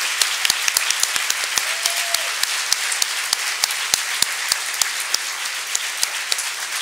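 A large audience applauding, a dense steady patter of many hands clapping that eases slightly near the end.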